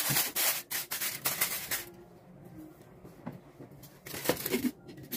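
Aluminium foil crinkling and rustling as a hand presses and crimps it down over a pan, in bursts through the first two seconds and again about four seconds in.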